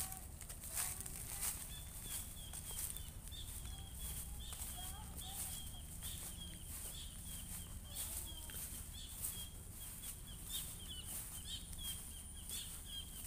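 Outdoor ambience: a thin, high trill pulsing a few times a second sets in about two seconds in and carries on, over crunching steps on dry grass and a low rumble.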